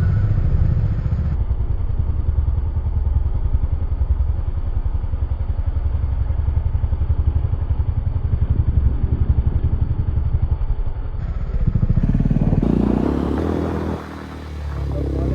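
KTM RC 200's single-cylinder engine and exhaust running on the move, a steady pulsing beat. Near the end the sound changes, dips briefly in level and then picks up again, as with the throttle closing and reopening.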